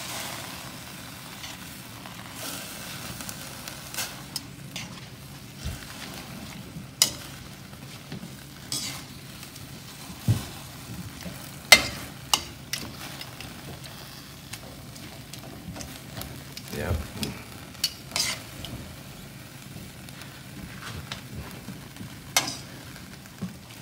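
Chayote squash tops bubbling and hissing in boiling water in a stainless steel pan while being turned with metal tongs, with occasional sharp clinks of the tongs against the pan.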